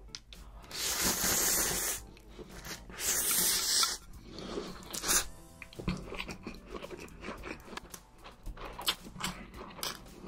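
A mouthful of spicy instant noodles slurped in twice, two long loud slurps in the first four seconds, followed by close-up wet chewing and lip smacking.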